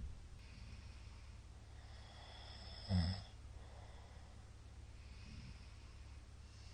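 A man snoring in his sleep, in a lull between loud snores: one short snore about three seconds in, with a brief click at the very start. A low steady hum lies underneath.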